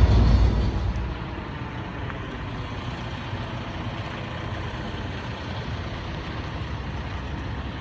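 Steady vehicle noise from a semi truck: a loud low rumble falls away about a second in, leaving an even, steady hum.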